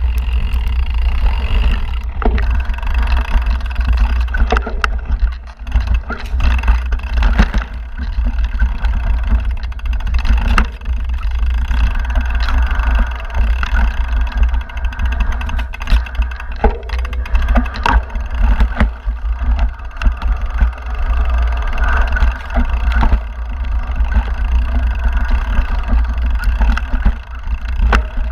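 Mountain bike riding down a rocky dirt singletrack: tyres crunching over gravel and dirt, with frequent sharp knocks and rattles from the bike over rocks and roots. A heavy steady wind rumble on the action-camera microphone runs underneath.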